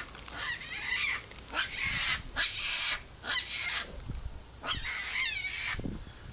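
Monkeys giving high-pitched, wavering squeals, about five calls spaced roughly a second apart.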